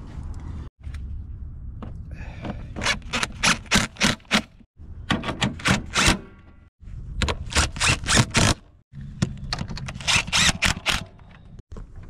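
Power impact tool running bolts in with four short bursts of rapid hammering, each about a second long, separated by brief pauses.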